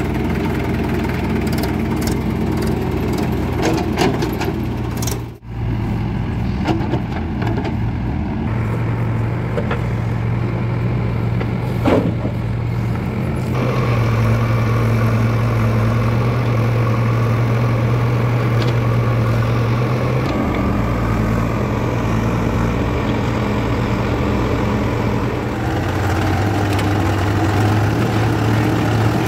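Diesel engines of a Swaraj 843 XM tractor and a JCB 3DX backhoe loader running steadily, the engine note changing abruptly at several cuts, with one brief drop-out about five seconds in. A short sharp knock comes about twelve seconds in.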